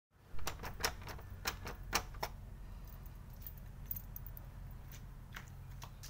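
Sharp metallic clicks and rattles from a brass door knob lock and a ring of keys being handled: a quick run of about eight clicks in the first two seconds or so, then a few scattered ones.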